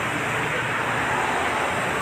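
Steady hiss and rumble of road traffic.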